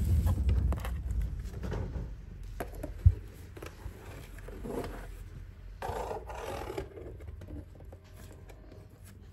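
Domestic cat purring heavily close to the microphone, a low rumble that is loudest in the first two seconds and fainter after. A sharp click about three seconds in and rustling of the cardboard box around six seconds in.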